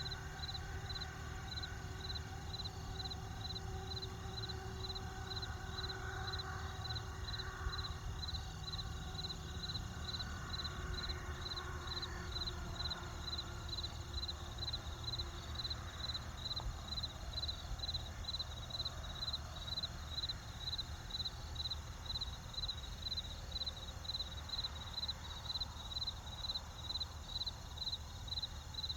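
Cricket chirping steadily, about two chirps a second, over the low, continuous rumble of a campfire.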